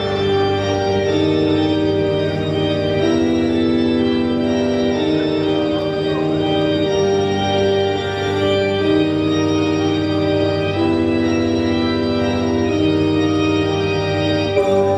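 Music: slow, held chords that change about every two seconds over a steady low bass note, with no drum beat.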